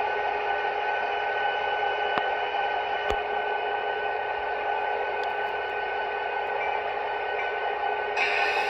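Model train running on the track: a steady hum with several constant pitches, with a sharp click about three seconds in.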